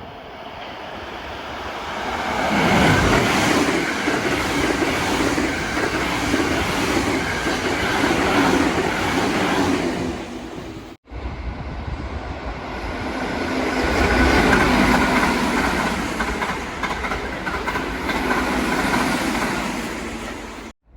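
Trains running over rail joints, the wheels clacking as they cross each joint, in two separate passes. Each pass builds up, peaks and fades, and the second starts after a sudden break about halfway through.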